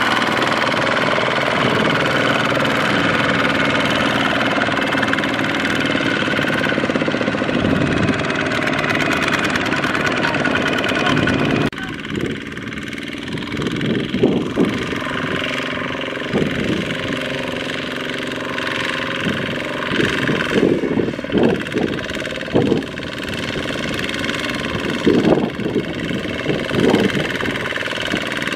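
Single-cylinder diesel engine of a Kubota two-wheel walking tractor (power tiller) running under load while it pulls a trailer laden with rice sacks. About twelve seconds in the sound changes abruptly, and the engine note then comes with irregular louder surges every few seconds.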